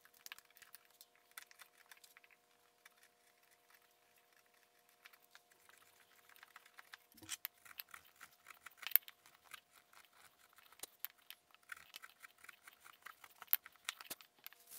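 Bench chisel paring the leftover stub off the centre of a wooden bowl's bottom by hand: faint scraping with many short, crisp clicks as small shavings come off, sparse at first and more frequent in the second half.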